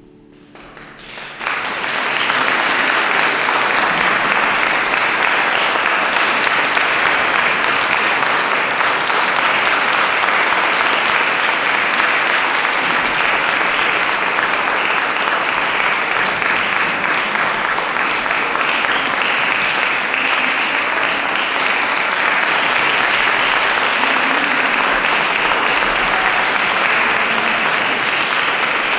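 Audience applauding: the clapping breaks out about a second in and then holds dense and steady.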